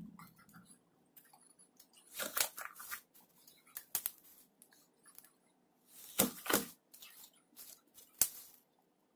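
A hand pressing and squeezing glitter-covered slime in a bowl, giving clusters of sticky crackling and popping, loudest about two seconds and six seconds in, with a single sharp pop a little after eight seconds.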